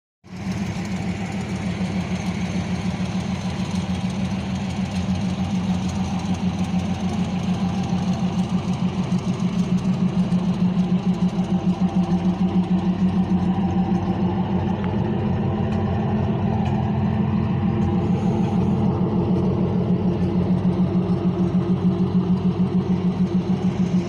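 Pontiac Trans Am's V8 engine idling steadily with an even, rapid throb, running on its own after the new alternator and a jump start.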